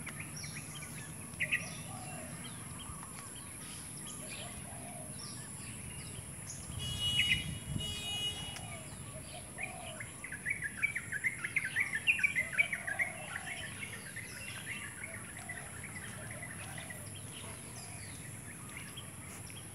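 Birds chirping and calling in the open, with a dense run of quick chirps about ten seconds in and a brief louder call a few seconds before it, over a steady high hiss.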